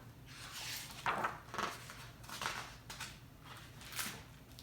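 Paper rustling and soft handling noises from a hardcover picture book being opened and its pages turned, in a string of short rustles.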